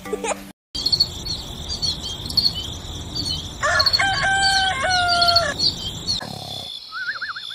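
Birds and crickets chirping, with a rooster crowing once about four seconds in and a warbling bird call near the end.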